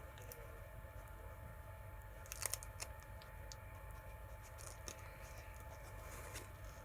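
Faint clicks and light taps of a small plastic glitter pot being handled and its lid worked open, with a short cluster of louder clicks a couple of seconds in, over a steady low hum.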